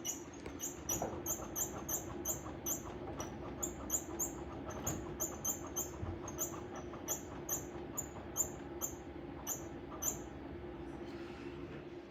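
Bai embroidery machine running with a steady hum and a short, high-pitched squeak repeating about three times a second, the squeaky fault noise being traced. The squeaks stop about ten seconds in.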